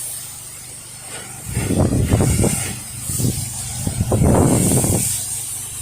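Wind gusting against the microphone, an uneven low rumble that rises about a second and a half in and comes and goes, over a steady high hiss.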